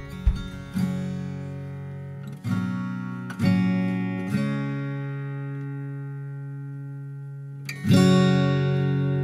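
Background music: acoustic guitar strumming chords, with one chord left ringing out for about three seconds before the strumming picks up again near the end.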